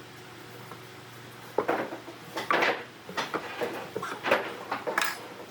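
Hard objects clattering and knocking together, a quick irregular run of knocks starting under two seconds in and stopping near the end, over a low steady hum.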